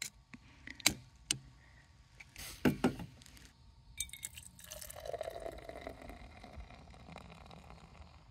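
An aluminium beer can is opened with a short crack and hiss about two and a half seconds in. From about four seconds on, beer is poured steadily from the can into a stainless steel tumbler.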